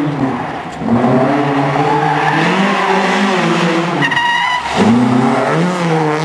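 Rally-prepared Volvo 240's engine revving hard under full throttle, its pitch climbing as it accelerates. A short tire squeal comes about four seconds in as the car slides through the corner. The engine note then drops sharply and climbs again as the throttle comes back on.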